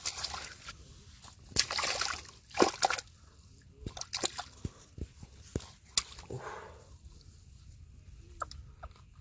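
A landed carp thrashing on wet grass and in the shallow water at the pond's edge: a few splashy flops in the first three seconds, then scattered slaps and one more flop about six seconds in.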